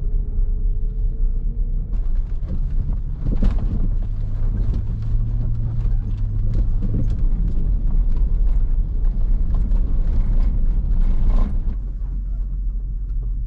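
Land Rover LR3 driving over a rough dirt track: a steady low rumble of engine and tyres, with frequent knocks and rattles from the bumpy ground.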